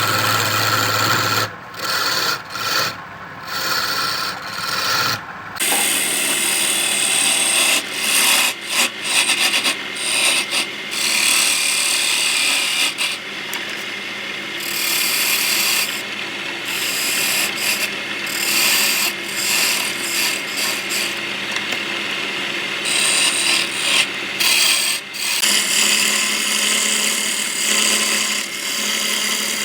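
Tools working wood: steady rubbing and rasping, with short gaps and abrupt changes in tone where one clip cuts to the next, notably about five and a half seconds in.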